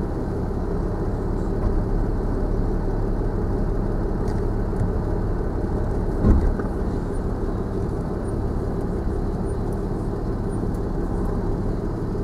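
Land Rover Discovery 4 crawling in low range, heard from inside the cabin: a steady engine and rolling drone, with a single thump about six seconds in.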